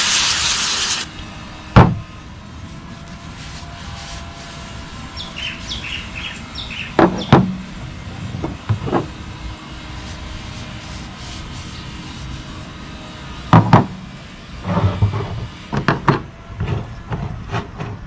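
Aerosol brake cleaner sprayed in one hissing burst of about a second, followed by a sharp click and scattered clicks and knocks of metal parts being handled.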